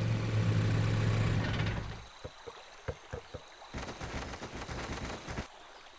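Cartoon jeep's engine running with a steady low hum that fades out about two seconds in. It is followed by faint scattered light taps and clicks.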